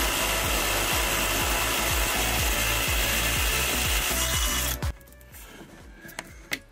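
Cordless impact driver hammering a seized steel bolt loose through a 9/16 impact socket on an extension, the bolt turning out. It runs loud and steady, then stops suddenly about five seconds in, leaving only a few small clicks of handling.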